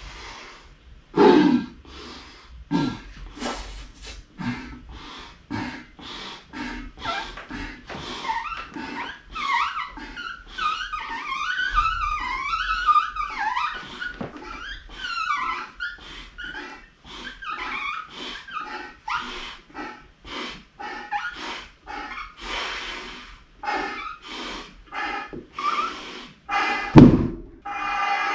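A man forcefully blowing repeated breaths into a rubber hot water bottle to inflate it, a hard puff about every second. In the middle stretch the stretched rubber and escaping air give wavering squeaky tones, and near the end there is one loud thump.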